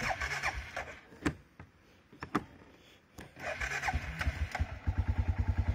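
Arctic Cat 500 ATV engine being restarted: a couple of sharp clicks, then about three and a half seconds in the starter cranks it and it catches, settling into an even, fast-pulsing idle near the end. The owner says this engine keeps fouling its spark plug.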